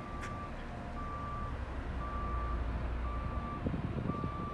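A vehicle's reversing alarm beeping steadily, one half-second beep about every second on a single tone, over a low rumble.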